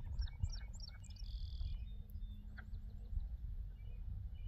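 Small marsh birds chirping: a quick run of short, high, falling chirps in the first second, then a short buzzy note and a few scattered chirps. Underneath is a steady low rumble of wind on the microphone.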